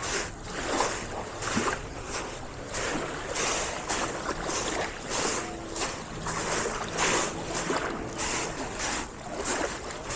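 Footsteps crunching over loose stones at a steady walking pace, about one and a half steps a second, with faint distant voices.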